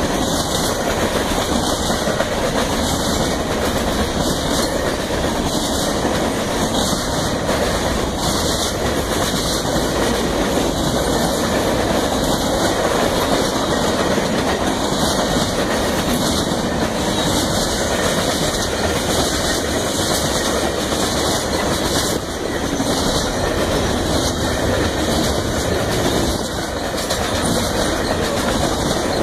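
Freight train cars rolling past at speed: a steady rumble of wheels on rail with repeated clacks as the wheels cross rail joints.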